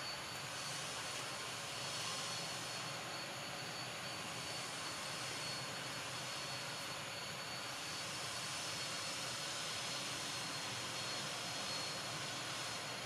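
Steady outdoor background noise: an even hiss with a thin, constant high whine, and soft swells in the upper hiss every couple of seconds.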